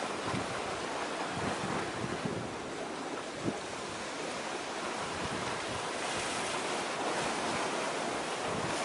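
Wind buffeting the microphone in uneven gusts over a steady wash of sea and waves, with one brief bump about three and a half seconds in.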